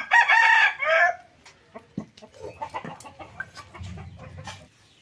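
A rooster crowing once, about a second long, at the start; it is the loudest sound. Faint scattered clicks and knocks follow.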